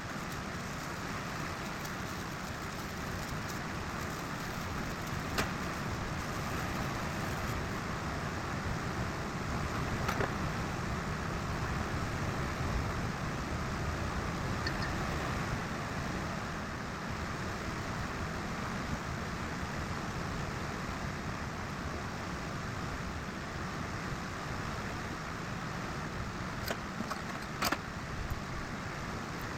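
Steady background noise, a low rumble and hiss that could be distant road traffic, with a few short sharp clicks about five seconds in, about ten seconds in and twice near the end.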